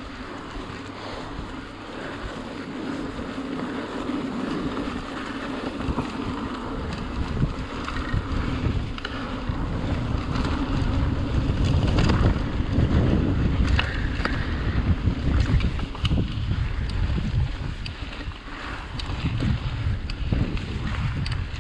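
Mountain bike rolling fast over a dirt trail, with wind buffeting the microphone: a steady rumble of tyres and wind that grows louder around the middle, broken by scattered clicks and rattles from the bike over the bumps.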